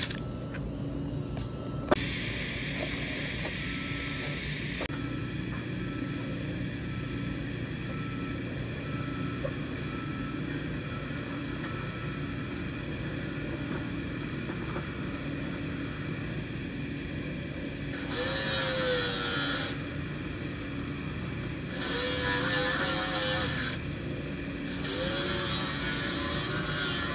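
TIG (GTAW) welding arc on a stainless steel pipe joint, striking about two seconds in with a click and then running as a steady buzzing hiss. The hiss swells louder three times in the second half.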